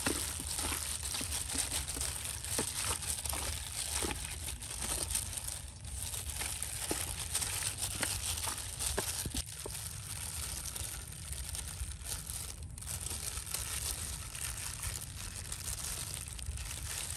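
Disposable plastic gloves crinkling and raw pork intestines squishing in chili sauce as hands knead them in a stainless steel bowl: a continuous run of small crackles and wet squelches.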